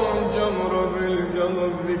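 A man singing an Iraqi song, drawing out one long note that dips slightly in pitch near the start and then holds with a slow waver.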